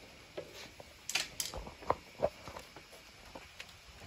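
Handling noise from a camera being carried about: a cluster of light knocks and clicks about a second in, over a faint steady hiss.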